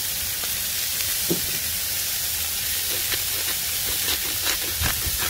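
Beef burger patties sizzling on a hot Blackstone flat-top griddle: a steady frying hiss with scattered crackles and pops of fat.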